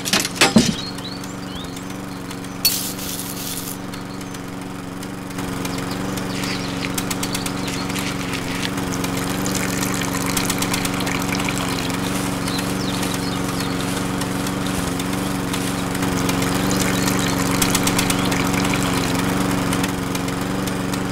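Small motor inside a toy engine model running steadily, driving a miniature threshing machine through a rubber-band belt, with a sharp knock just after the start. From about five seconds in it grows louder, with fast rattling and clicking from the machine as it works.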